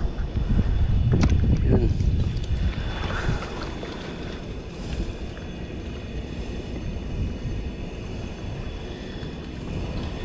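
Wind rumbling on the microphone over water washing against breakwater rocks, louder in the first two seconds, with a few sharp clicks and knocks about a second in.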